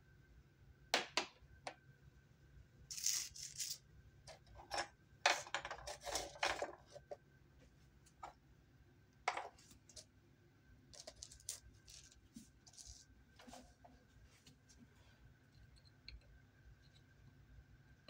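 Small objects being picked up and handled by hand: scattered clicks and taps, with bursts of rustling in the first several seconds and lighter, sparser clicks after that. A faint steady whine runs underneath.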